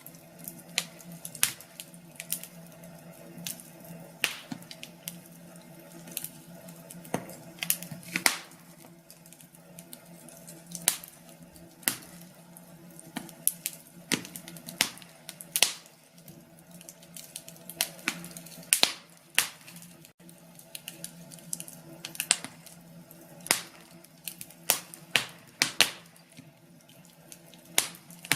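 Wood fire crackling in a fireplace: irregular sharp snaps and pops, from one to several a second, over a faint steady low hum.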